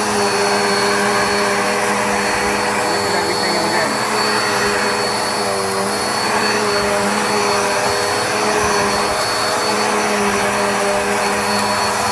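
Black + Decker Air Swivel upright vacuum running steadily during a cleaning pass: a constant rush of air and spinning brush roll with a steady motor hum and a thin high whine over it.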